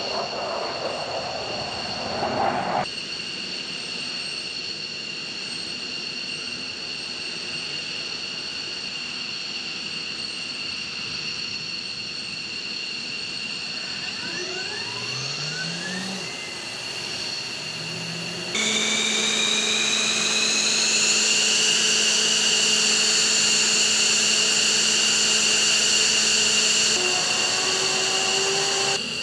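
F-15E Strike Eagle jet turbines running with a steady high-pitched whine. A little past halfway, a turbine spools up with rising pitch, then the whine gets louder and climbs a little higher before holding steady, as the engines come up during start.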